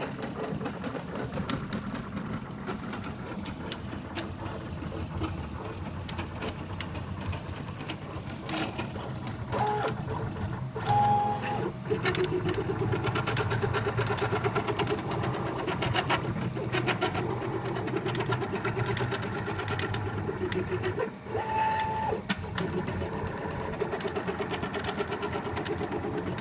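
CTC dual-extruder 3D printer running a print, its stepper motors whirring in shifting tones as the print head moves back and forth, with a brief higher steady whine twice.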